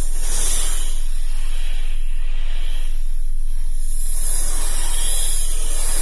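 A loud, even hissing noise that swells and fades several times, over a low steady hum.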